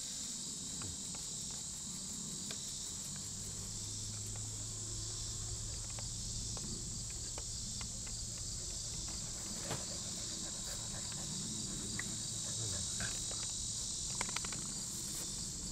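Steady, high-pitched chorus of insects chirring, with a few faint clicks and a faint low hum through the middle.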